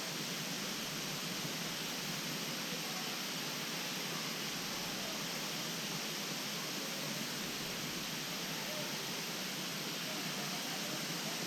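Steady, even rushing of falling water from a waterfall, a constant noise without gusts or breaks.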